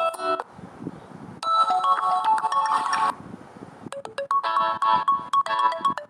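Gionee Max phone ringtone previews playing through the phone's speaker: short electronic melodies played one after another. Each stops abruptly after a second or two when the next is selected, with brief gaps and a few short ticks between them.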